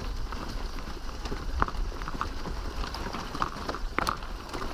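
Touring bicycle rolling over a rocky dirt track: irregular knocks and rattles as the tyres hit loose stones, over a steady low rumble.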